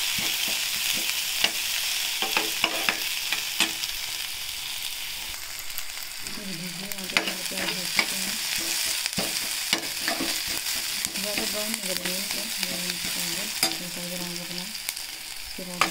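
Sliced onions and green chillies sizzling in hot oil in a metal kadai, being sautéed. A metal spoon stirs them, scraping and tapping against the pan in sharp clicks over the steady hiss.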